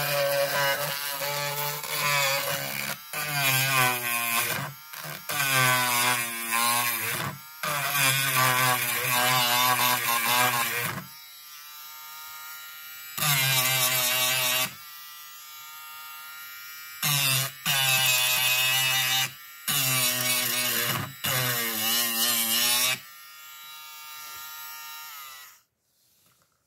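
Cordless mini rotary tool's small motor whining as its pink grinding stone works the edge of a wooden board. It runs in several loud stretches with a wavering pitch and runs more quietly between them, then is switched off about a second before the end.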